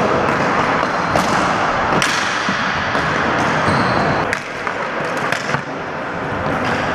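Ball hockey in a gymnasium: sticks knocking against the ball and the hardwood floor, several sharp knocks standing out over a steady din of players running and moving about the hall.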